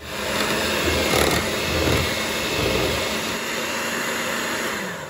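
Hamilton Beach 6-speed electric hand mixer running, its beaters whirring through heavy cream as it whips up into thick whipped cream. The steady motor whir starts suddenly and begins to wind down near the end.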